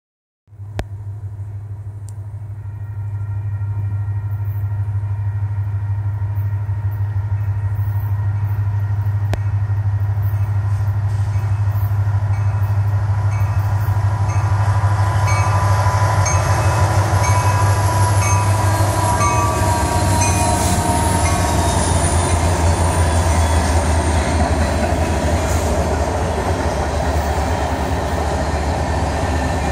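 Freight train approaching and passing, led by Union Pacific diesel locomotives: the low engine rumble grows louder over the first fifteen seconds or so as the train closes in, then the rolling freight cars keep the noise up as they go by.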